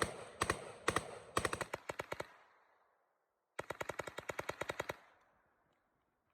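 Rifle firing fast strings of shots through a rapid-fire aftermarket trigger. A few shots come about half a second apart, then a quicker run; after a pause of about a second and a half comes a rapid string of about a dozen shots, roughly ten a second, each string's echo fading out after it.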